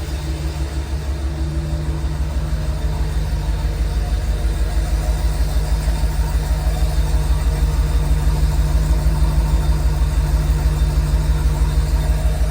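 Factory Ford pickup's gasoline V8 engine with stock exhaust, running at idle with an even, pulsing low rumble that swells slightly in level partway through.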